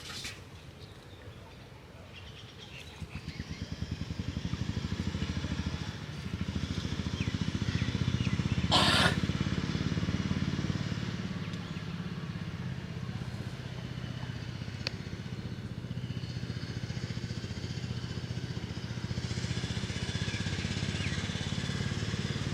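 A small engine running steadily. It grows louder over the first few seconds, then holds. One brief sharp noise comes about nine seconds in.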